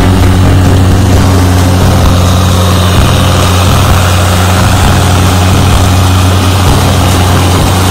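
PistenBully snow groomer's diesel engine running steadily as the tracked machine drives over the snow.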